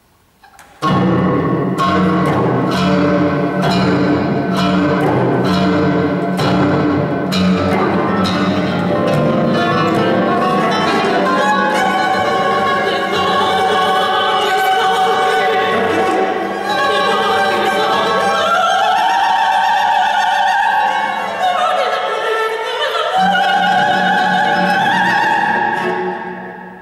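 Contemporary chamber music for four classical guitars, cello and mezzo-soprano, starting suddenly about a second in with sharp repeated guitar chords over the cello. In the second half the mezzo-soprano sings long sliding, wavering lines above the strings. The music dies away near the end.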